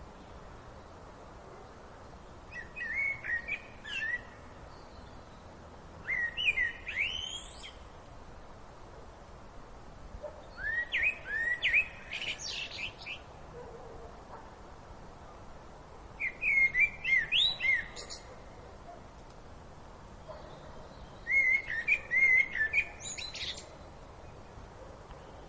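A bird singing: five short phrases of quick rising and falling whistled notes, spaced several seconds apart, over a steady low background hiss.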